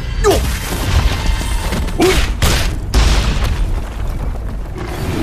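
Fight sound effects for an energy-charged punch: several heavy booming impacts, one about a third of a second in and a cluster around two to three seconds in, over a low rumble.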